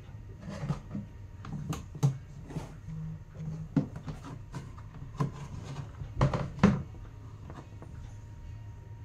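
Polypropylene bathroom mirror cabinet being handled, its plastic parts giving a series of light clicks and knocks, the loudest pair about six seconds in, over a steady low hum.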